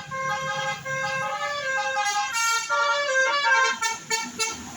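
Bus telolet horn: a multi-tone musical air horn playing a fast run of stepped notes, the pitch jumping several times a second. A low hum sits under the first second and a half.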